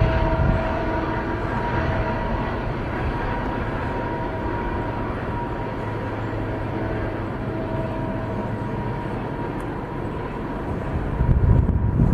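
GE diesel-electric freight locomotives, led by an ET44AC, running as the train approaches: a steady engine drone with a hum of steady tones. The deep rumble swells about eleven seconds in as the lead unit draws near.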